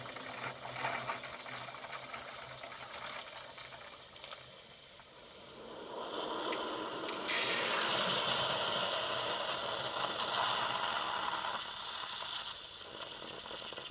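Bosch Tassimo pod machine dispensing a drink: a steady pump hum as hot water runs through the pod into the cup, then about seven seconds in a loud hissing and spluttering of steam and air through the pod that eases off near the end, as the brew finishes.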